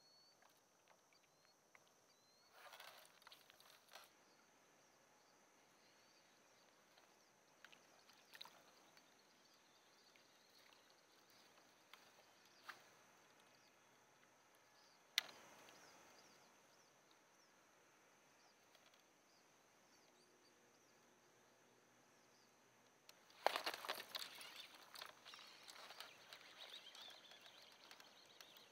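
Quiet open-lake ambience with a faint steady high hum, broken by a few small clicks and knocks of fishing gear handled in a kayak and one sharp click about halfway. About three-quarters of the way in comes a louder noisy burst lasting a couple of seconds.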